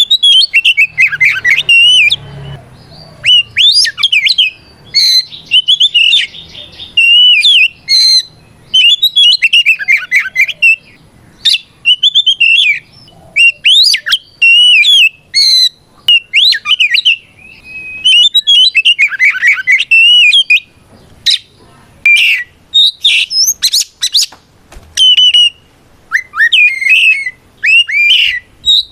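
Kacer (oriental magpie-robin) singing loud, varied phrases of fast whistles, sweeping glides and harsh notes in bursts with short pauses: the full, aggressive 'ngeplong' song used to challenge a rival.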